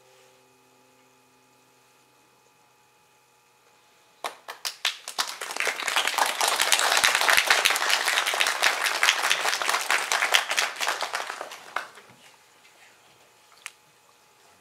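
The last notes of a guqin (seven-string Chinese zither) ring faintly and die away, then after a short hush an audience applauds. It starts with a few scattered claps about four seconds in, swells quickly, and fades out around twelve seconds in.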